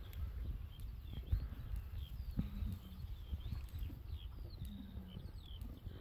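Small birds chirping repeatedly in short, quick calls over a low rumble of wind on the microphone.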